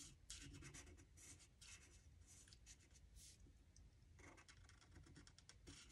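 Stampin' Blends alcohol marker's firm tip stroking across vellum: a series of short, faint scratchy strokes as a leaf is colored in from the back.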